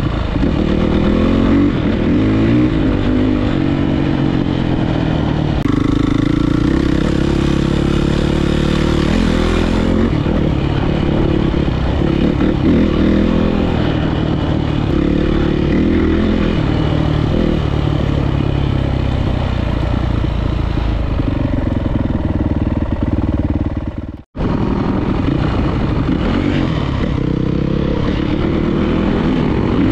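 A 450cc single-cylinder four-stroke dirt bike engine being ridden, revving up and down again and again as the throttle opens and closes. The sound cuts out for a moment about three-quarters of the way through.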